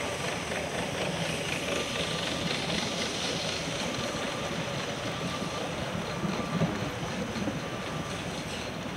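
Steady rushing noise of wind and movement on a moving camera's microphone, with faint short beeps repeating about once a second.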